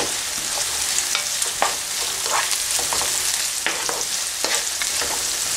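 Chopped red onion and curry leaves sizzling in hot oil in a pan, the onions starting to turn translucent. A utensil stirs and scrapes through them in short strokes roughly every half second to second over the steady sizzle.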